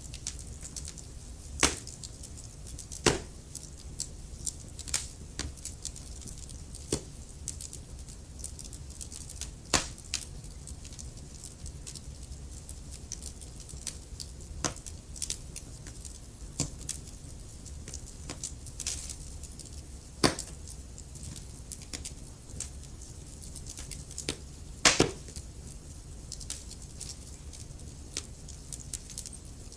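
Burning logs crackling in a fireplace: irregular small crackles with a handful of louder pops, over a low steady rumble.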